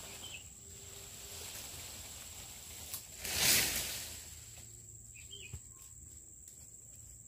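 Insects keeping up a steady high-pitched buzz, with a brief swell of rustling noise about three and a half seconds in and a few faint clicks near the end.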